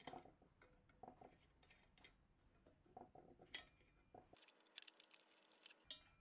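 Faint, scattered light clicks and clinks of metal parts being handled: the fuel tank, generator tube and brass valve of a Coleman 508A Sportster petrol stove being put back together.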